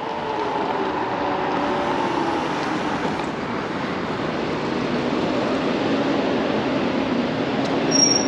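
Steady wind and road rush from riding a Kaabo Wolf King GT dual-motor electric scooter, with a faint motor whine that falls in pitch over the first few seconds. A brief high tone near the end.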